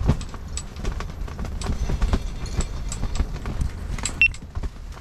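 Strong gusty wind buffeting an ice-fishing shanty: a constant low rumble with many irregular sharp taps and snaps. A short high chirp sounds about four seconds in.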